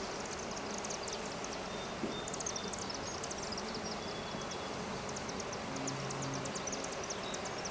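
Honeybees buzzing around an open nuc box as its frames are moved: a steady low hum, with quick high-pitched chirping over it from about two seconds in.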